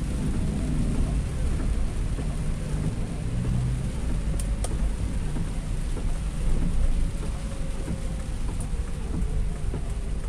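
Heavy rain drumming steadily on a car's roof and windscreen, heard from inside the cabin, over a low rumble of the car driving on the wet road.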